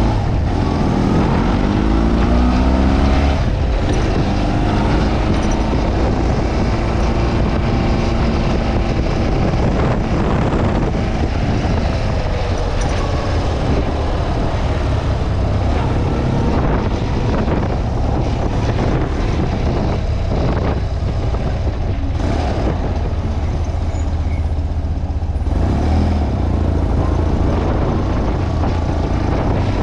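1985 BMW R80G/S Paris-Dakar's air-cooled flat-twin engine running under way, rising in pitch as the bike accelerates in the first few seconds and again near the end.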